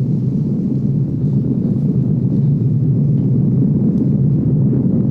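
Loud, steady low rumble with no clear pitch, a sound-design drone in the film's soundtrack.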